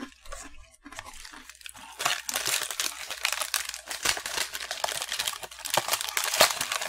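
Rustling and crinkling of a Glico Pretz snack packet, loud and continuous from about two seconds in. Before that there is faint crunching of a breadstick being chewed.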